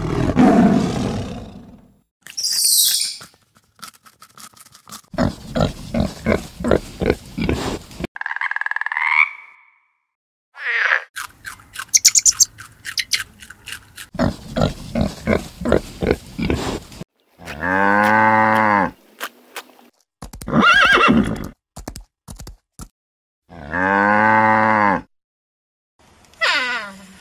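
A rapid string of different animal sounds spliced one after another: a loud rough growl at the start, then short clicks, squeaks and calls, and three long, low calls about a second each that rise and fall in pitch in the second half.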